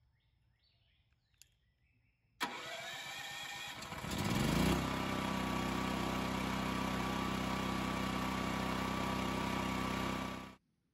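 Westinghouse portable generator's engine starting. A steady noise begins about two and a half seconds in. The engine catches about four seconds in, rises briefly in pitch, then settles into a steady run until the sound cuts off near the end.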